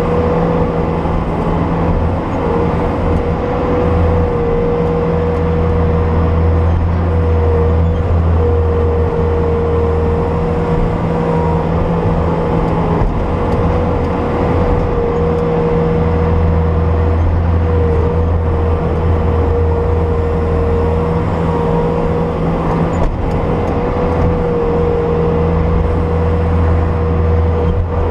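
Bobcat S250 skid steer's diesel engine running steadily under load while digging through deep snow, with a steady whine over the low engine drone.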